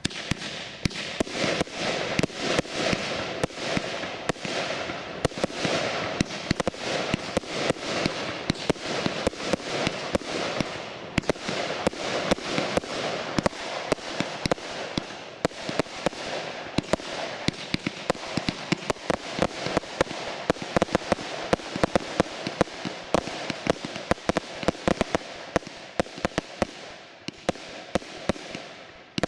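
A 100-shot fireworks cake firing shot after shot: many sharp reports each second, irregularly spaced, over continuous crackling, starting abruptly.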